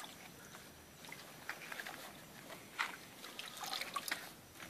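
Faint sloshing and dripping of water as a cloth rag is dipped into a plastic bucket and lifted out, with a few soft splashes scattered through.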